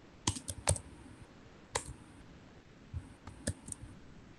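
Computer keyboard keystrokes, a handful of sharp separate clicks: a quick group of three near the start, a single one just under two seconds in, and another quick group of about four near the end.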